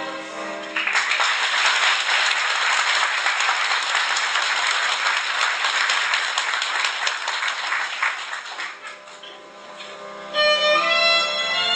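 A children's carol ends in the first second, followed by audience applause for about seven seconds that dies away. About ten seconds in, instrumental folk music starts loudly.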